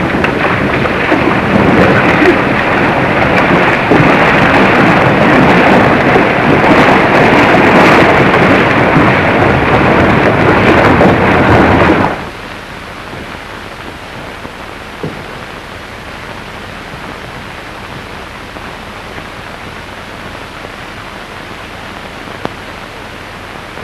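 Many horses galloping: a loud, dense rumble of hooves that cuts off abruptly about twelve seconds in, leaving only the old soundtrack's steady hiss.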